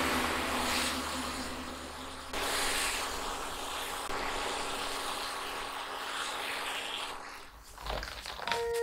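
Apple slices sizzling in a nonstick frying pan as they are turned with a spatula, a steady hiss, over a low held chord of background music that fades out.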